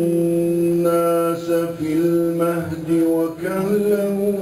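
A man's voice in melodic Quran recitation (tajweed), drawing out a long vowel over several held notes with a wavering ornament in the middle.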